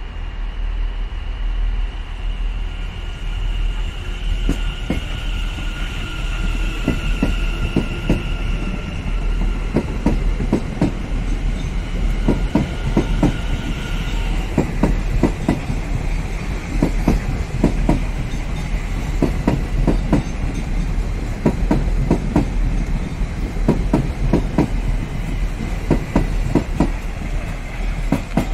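South Western Railway Class 701 Arterio electric multiple unit pulling away and passing close by: a steady high electric whine that steps down in pitch about halfway, over wheels clacking over rail joints in a rhythm that quickens as the train picks up speed.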